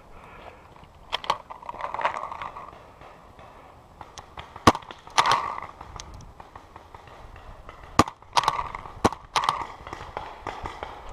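Paintball markers firing during a game: sharp single pops spread irregularly, a few of them in quick pairs.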